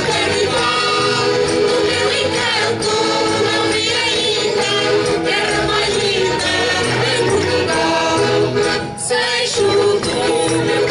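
A mixed choir of men's, women's and children's voices singing a folk song together, with a brief break in the singing about nine seconds in before it carries on.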